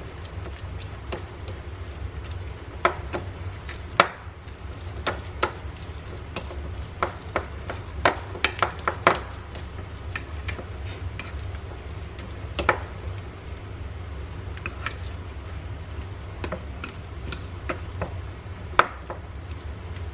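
Irregular clicks and taps of a kitchen utensil against a small bowl while a cream cheese and cheddar filling is stirred, a cluster of quicker taps about eight to nine seconds in, over a steady low hum.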